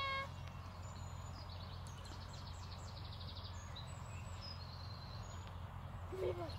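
Small birds singing, faint: quick high trilling phrases and short chirps over a steady low hum. A short pitched call sounds at the very start and another a little before the end.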